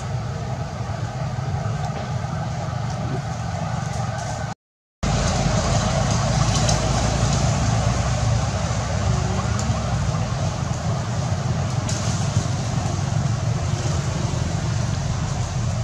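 Steady outdoor background noise, a low rumble with a hiss, like distant traffic, cut by a half-second silent dropout about four and a half seconds in; no clear monkey calls.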